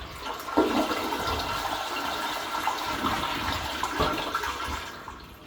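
Royal & Company RWC211 toilet flushing: a sudden surge of rushing water about half a second in, running steadily, then dying down near the end.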